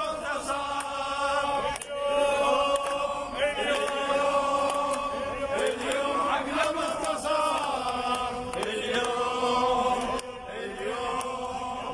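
Crowd of protesters chanting slogans together in repeated phrases.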